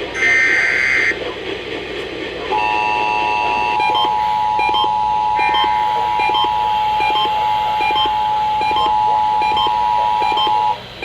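Emergency Alert System tones: a burst of screeching SAME header data lasts about a second at the start, then the two-tone EAS attention signal sounds steadily for about eight seconds, with faint short beeps repeating about twice a second over it, and cuts off abruptly near the end.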